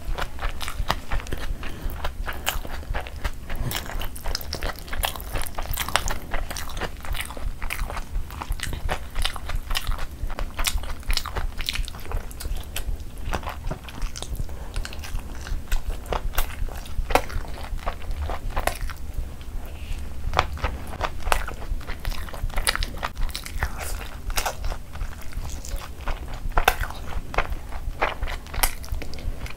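Close-miked chewing of mouthfuls of chicken and biryani rice, with a dense, continuous run of wet smacking clicks from the mouth.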